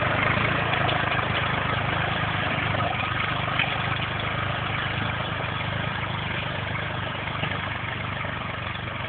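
Tractor engine running steadily while pulling a plough, slowly growing fainter as it moves away.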